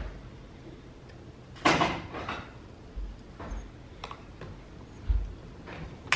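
Light clicks and knocks of a plastic spoon and bowl being handled on a child's plastic table: a few scattered taps, with one louder clatter about a second and a half in.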